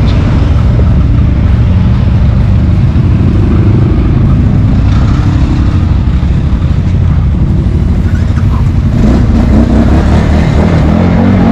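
ATV engines idling loud and close, with the engine pitch wavering up and down near the end as the quad pulls away.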